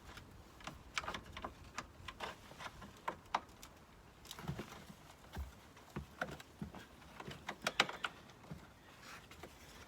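Scattered small clicks, taps and rustles of hands working a tight plastic wiring fitting out of its housing.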